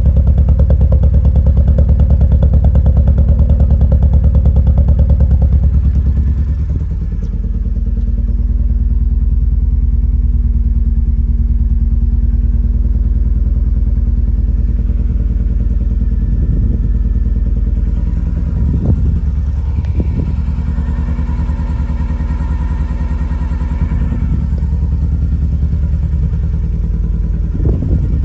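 Lotus Elan M100's Isuzu 1.6-litre four-cylinder engine running with a misfire. It is louder for the first six seconds or so, then drops and settles at a lower, steady level, with a few sharp knocks later on.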